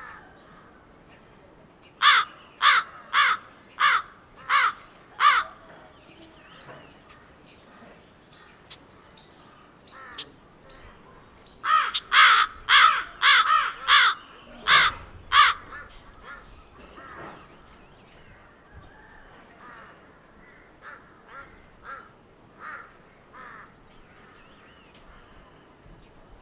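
Crows cawing: a quick run of six loud caws, then a second loud run of about eight caws, with fainter caws in between and near the end.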